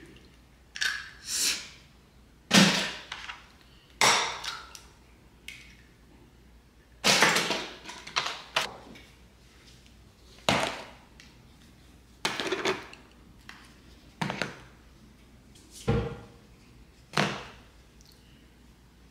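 A series of sharp knocks and taps, one every second or so with short gaps: eggs cracked into a ceramic bowl, then seasoning cans and jars set down on a kitchen countertop.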